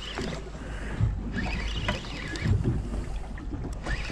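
Wind on the microphone and boat and water noise, a steady low rumble, while a spinning reel is cranked to wind in a hooked fish.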